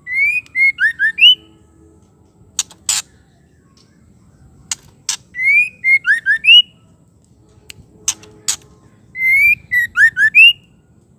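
White-rumped shama singing a short phrase of whistled, gliding notes three times, about four seconds apart, with sharp clicks between the phrases.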